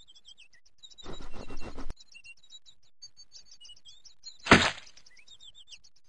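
Cartoon sound effects over steady high birdsong chirping. About a second in, a noisy burst of rapid ticks lasts nearly a second. About four and a half seconds in comes one loud, sudden hit with a short ring, the loudest sound.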